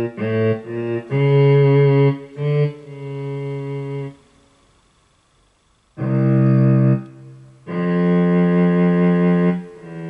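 Electric guitar played through a guitar synthesizer set to a cello-like bowed-string voice: a slow melody of low notes that hold steady without decaying, with a pause of about two seconds in the middle.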